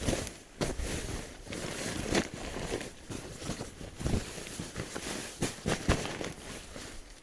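Irregular rustling and crunching handling noises with a few sharper knocks, about 2, 4 and 6 seconds in.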